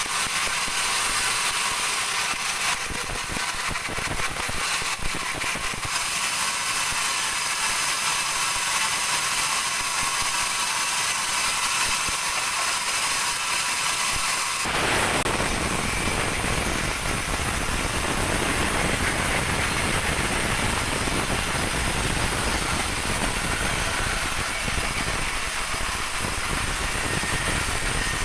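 A large band sawmill running as it splits dry teak. For the first half the sound is thin and high, then about halfway through it turns suddenly fuller, with the low end coming in.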